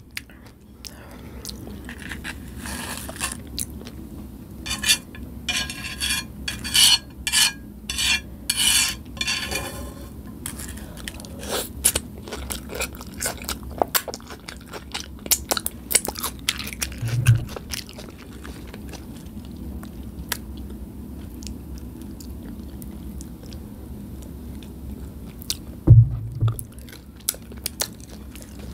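Close-miked chewing of crunchy Nacho Cheese Doritos taco shells with beef filling: dense crisp crunching for the first ten seconds or so, then quieter chewing and scattered mouth clicks. Two dull thumps stand out, one about 17 seconds in and a louder one near the end.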